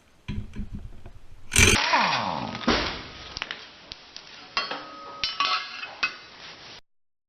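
Metal parts and tools clanking and clinking as a lawn tractor is taken apart, with one loud metallic crash about a second and a half in that rings on briefly. The sound cuts off abruptly near the end.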